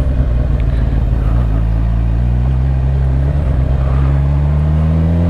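Honda CB1000R's inline-four engine running under way. About a second and a half in the engine note changes, and then it rises steadily as the bike accelerates.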